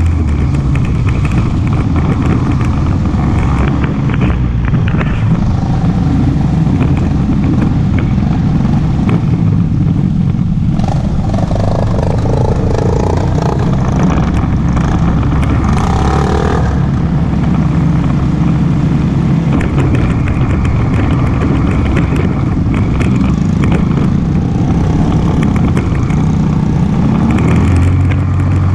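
ATV engine running steadily under way, loud and close, with constant rattling and noise from the ride.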